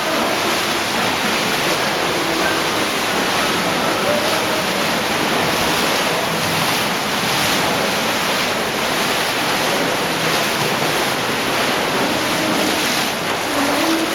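Cave stream in near flood, water rushing through the passage with a steady roar.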